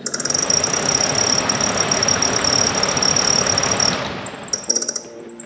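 Fox-body Mustang heater blower motor spinning up under 12 volts with a whirring rush and a high, steady squeal, which the owner puts down to a dry bearing near the bottom of the motor. About four seconds in it winds down, leaving rapid chirping ticks.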